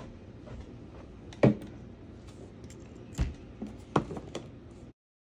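Several sharp knocks and taps over a steady low room noise, the loudest about one and a half seconds in; the sound cuts off abruptly near the end.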